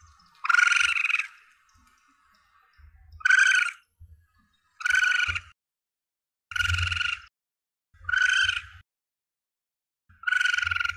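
Juvenile Asian palm civets (musang pandan) calling: six short, high, steady-pitched cries, each about half a second long, repeated every one and a half to two seconds.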